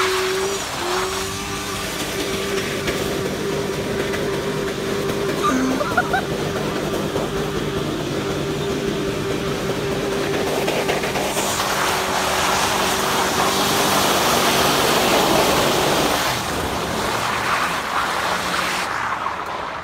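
Pickup truck engine held at high, steady revs while the rear tires spin doing donuts, with tire noise swelling partway through. The engine note breaks off after about fourteen seconds, and the sound drops away near the end as the truck pulls off.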